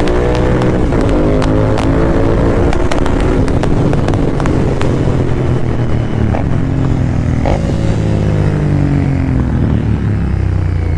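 Royal Enfield Continental GT650's 648 cc parallel-twin engine running while the bike is ridden along the road, its note slowly falling over the first half. A string of sharp clicks runs through the first five seconds or so.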